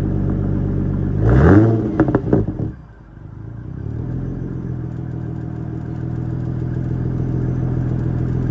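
Mercedes-Benz CLK 320's M112 3.2-litre V6 with its muffler deleted, idling on a cold start, then blipped once about a second in. The revs rise and fall quickly, with a few sharp pops and crackles from the exhaust as they drop, before it settles back to a steady idle.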